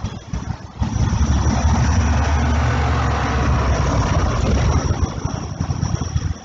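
A car driving past on a wet street: a low engine and tyre rumble with tyre hiss that swells, peaks midway and fades away, over the sound of falling rain.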